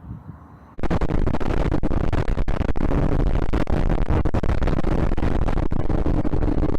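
Loud wind rush and crackling buffeting on the microphone of a small camera mounted on a Timber RC plane in flight, with a steady motor hum underneath. It starts abruptly about a second in, after a quieter stretch.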